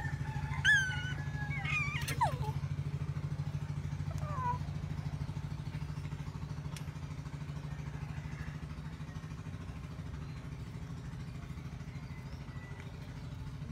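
A steady low motor hum with a fine rapid pulse, with a few short high-pitched squeals in the first few seconds.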